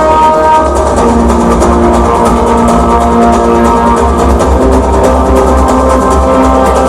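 Loud dramatic show music played over a sound system: held melodic notes that shift every second or so over a heavy, steady bass.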